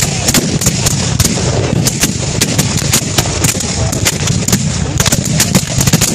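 Ragged musketry from a line of black-powder rifle-muskets: about two dozen sharp shots at uneven intervals, some almost on top of each other, over a continuous din.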